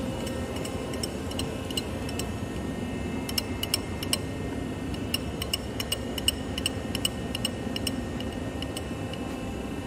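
Tailstock handwheel of a Monarch Model 80 engine lathe being cranked by hand to run the quill out. It gives a string of light metallic ticks, about five a second, from about three seconds in until near the end, over a steady machine hum.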